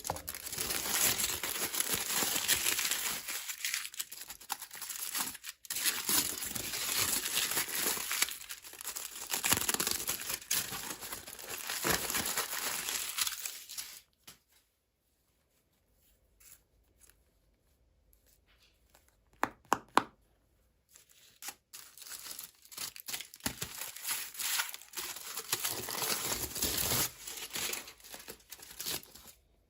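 Packaging torn open and crinkled by hand, in two long stretches. In between is a quiet gap broken by a few sharp clicks.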